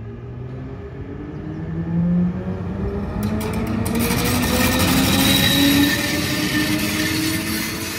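Electric train accelerating: the traction motors' whine climbs steadily in pitch throughout. From about three seconds in, a quick run of clicks from the wheels over rail joints gives way to a loud, steady rush of wheels on rail.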